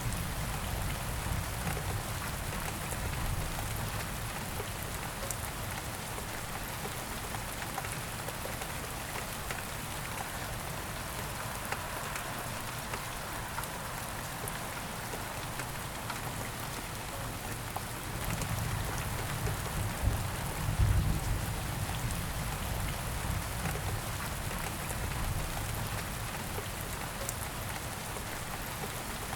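Steady rain falling on a surface, an even hiss with scattered drop ticks. A low rumble underneath swells about two-thirds of the way through, then eases.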